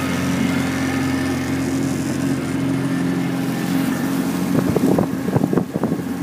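Motorboat engine running steadily under way, a constant drone. Near the end comes a short run of sharp knocks and bumps over it.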